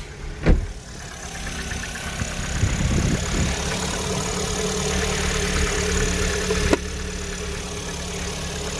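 Chevrolet Orlando engine idling steadily, with a short thump about half a second in and a click near the end.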